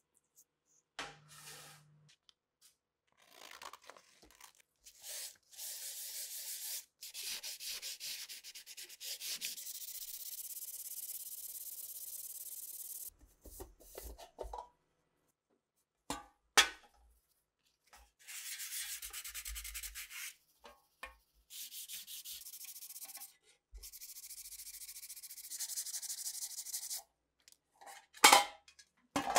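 Sandpaper rubbing over a round metal lid by hand: stretches of steady scratchy rubbing a few seconds long, broken by short pauses, with a couple of sharp knocks.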